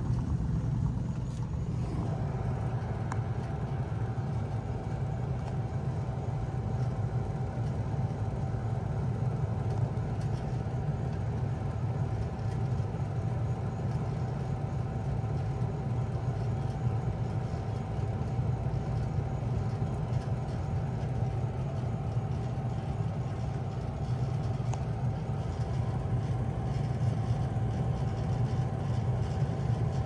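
2000 Bard 3-ton wall-hung heat pump running steadily in cool mode: a steady low compressor and fan hum, with a thin steady whine that comes in about two seconds in.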